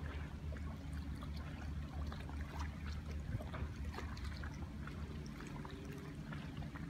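Distant SpaceX Falcon 9 rocket climbing after launch: a steady low rumble with scattered crackles.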